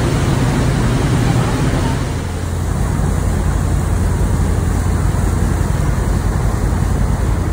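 Tour boat's engine running steadily, with water churning in its wake.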